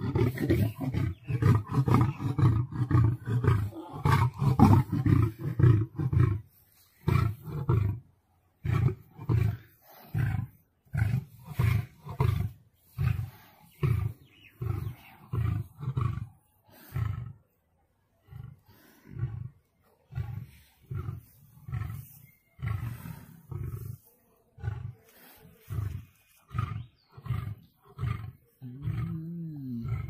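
Lion roaring: a continuous roar for about the first six seconds, then a long series of short grunting roars about one a second that weaken toward the end.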